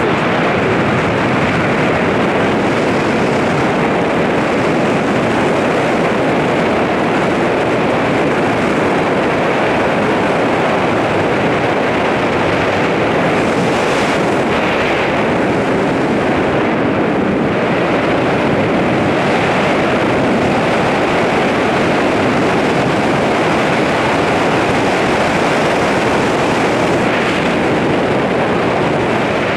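Steady wind rushing over the camera microphone during a tandem parachute descent under an open canopy.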